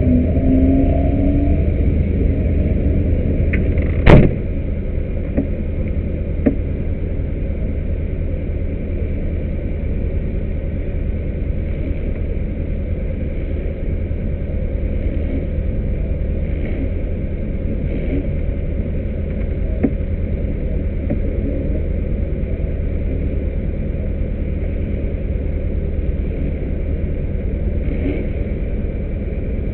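Vehicle engine heard on board at speed, running steadily with its pitch climbing briefly at the start. One sharp loud knock comes about four seconds in.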